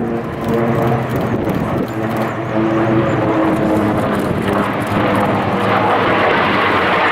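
Aircraft engine noise: steady engine tones under a rushing roar that grows louder and brighter about halfway through.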